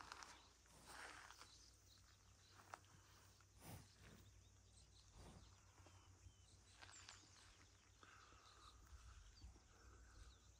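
Near silence outdoors: faint rustling and soft puffs of noise, with a few faint high chirps.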